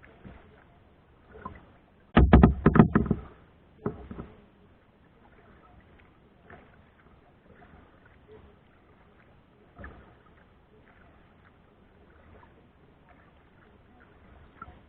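Kayak on the water: quiet water and paddle sounds, with a burst of rapid knocks about two seconds in and another single knock a second or so later.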